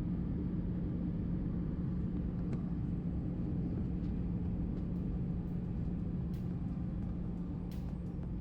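Airbus A320 cabin noise: a steady low rumble of the engines and airflow with a constant hum, with a few faint clicks in the second half.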